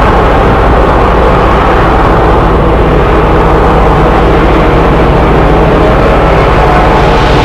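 Train running with a loud, steady rumble that holds even throughout.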